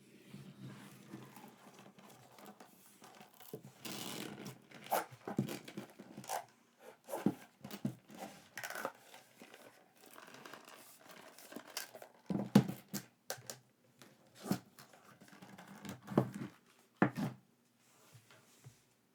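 Packaging being torn open and crinkled by hand: irregular rustling with sharp clicks and taps, the loudest about twelve seconds in.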